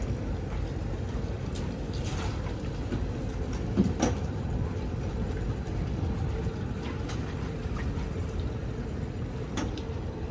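Steady low rumble with water washing around a catamaran's hulls and the inflatable tender alongside, with a sharp knock about four seconds in and a lighter one near the end.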